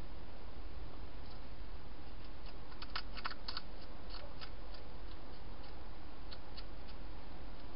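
Wild hedgehog eating dry food inside a plastic feeding box: scattered sharp crunching clicks, with a quick run of crunches about three seconds in, over a steady low hum.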